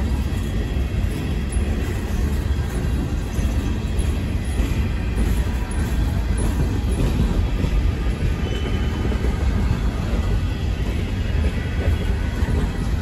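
Empty coal train of open-top hopper cars rolling past close by, its steel wheels running steadily on the rails as it gathers speed again.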